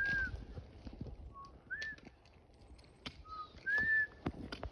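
A person whistling five short, clear notes that rise and fall, mimicking a thrush's song. The longest notes come at the start and near the end.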